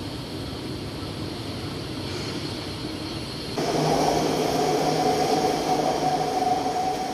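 A steady mechanical hum during an escalator ride, then, about three and a half seconds in, an abrupt change to louder metro train noise on an elevated station platform: a steady electric whine over running rumble.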